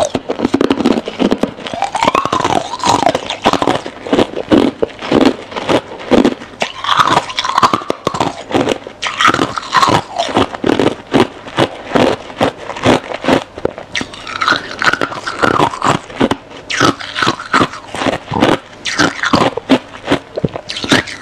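Freezer frost being bitten and chewed close to the microphone: a steady stream of crisp, rapid crunches.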